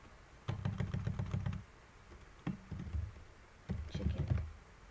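Typing on a computer keyboard: quick runs of key clicks in about three short bursts with brief pauses between them.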